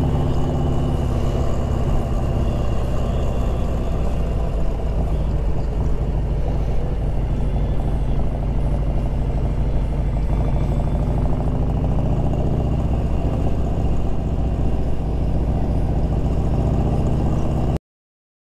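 Motorcycle engine running steadily at a road cruise, heard from the rider's own bike. The sound cuts off suddenly near the end.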